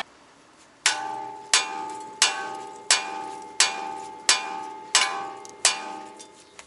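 A small sledgehammer striking a car's steel steering knuckle eight times in a steady rhythm, about one blow every 0.7 seconds, each blow ringing metallically. The blows are shocking the tapered stud of the tie rod end loose from the knuckle.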